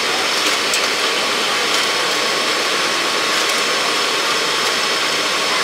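Steady rushing of a food stall's exhaust blower drawing air through a large flexible duct above the fryer, with a few faint clicks.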